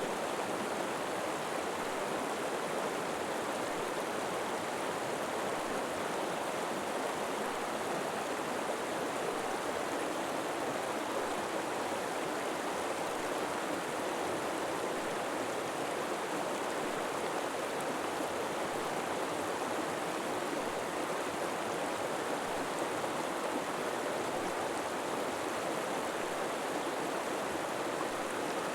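A river flowing steadily over rocks, a constant rushing and babbling of water with no breaks or single events.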